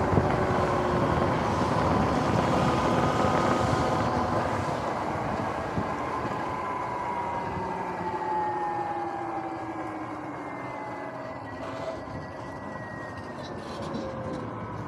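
Electric dirt bike's motor and drivetrain whining in several tones that slowly fall in pitch as the bike slows, over a haze of wind and tyre noise.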